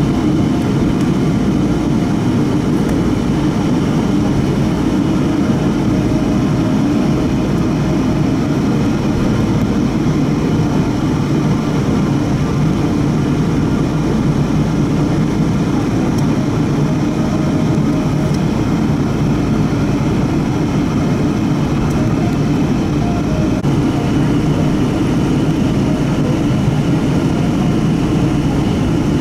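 Steady low rumble of cabin noise inside a Boeing 777-200 taxiing on the ground, its Rolls-Royce Trent engines at low taxi power, with a faint steady high whine above.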